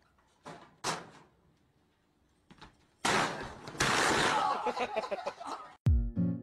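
Light knocks on a metal locker, then about three seconds in a loud crash with a second bang as the locker, with a person inside, goes over, followed by clattering that fades over a couple of seconds. Music with a steady beat starts near the end.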